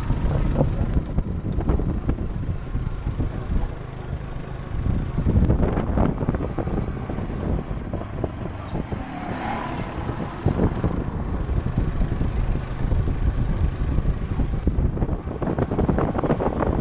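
Motorcycle-with-sidecar tricycle running along a village road, heard from the passenger seat: the engine mixed with the rumble and rattle of the ride and wind buffeting the microphone.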